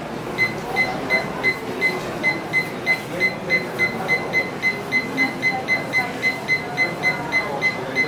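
Digital alarm clock beeping as its alarm minutes are stepped up: a steady run of short, high beeps, about two and a half a second, one beep per minute advanced.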